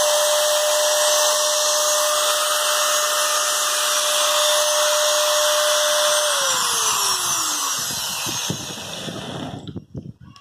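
Ryobi angle grinder running free with a steady high whine, then switched off about six seconds in, its pitch falling as the motor and disc wind down, with the noise dying away shortly before the end.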